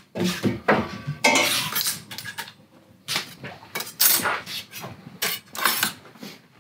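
Thin sheet-metal strips clinking and clattering against each other and a steel workbench as they are handled: an irregular run of sharp metallic clinks, one ringing on briefly about a second in.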